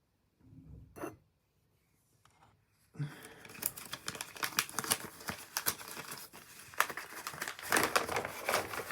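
Paper instruction leaflet being unfolded and handled, crinkling and rustling in quick irregular crackles that start about three seconds in.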